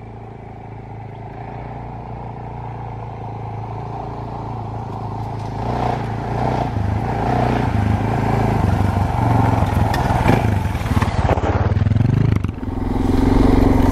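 Suzuki DR650's single-cylinder four-stroke engine running under load on a dirt track, getting steadily louder, with clatter from the bike joining in from about six seconds in. The engine note drops briefly near the end, then comes back louder.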